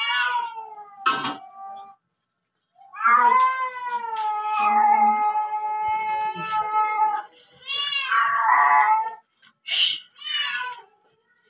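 Domestic cat yowling repeatedly: a short cry at the start, one long drawn-out yowl of about four seconds in the middle, then several shorter cries near the end. Two sharp knocks cut in, one about a second in and one near the end.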